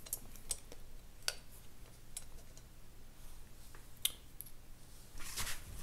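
Faint, scattered metallic clicks and ticks from small power-valve parts (pulleys, linkage pins and shaft) being handled and seated in a two-stroke cylinder's valve box. There are a handful of single sharp ticks, with a short run of clicks near the end.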